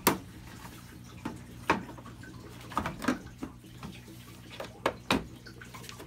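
Plastic taillight assembly knocking and clicking against the car body as it is worked back over its retaining clip: about seven short, sharp clicks and knocks at irregular intervals, over a low steady hum.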